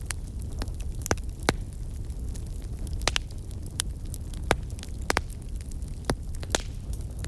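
Fire in a fireplace crackling: a steady low rumble of burning under irregular sharp pops, about a dozen of them.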